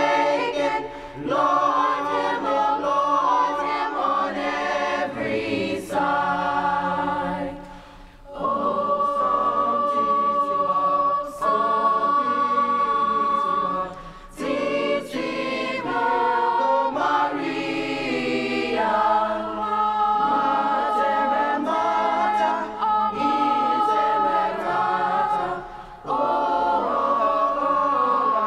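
High school choir singing a Christmas carol in long held chords, phrase by phrase, with short breaths between phrases about 8, 14 and 26 seconds in.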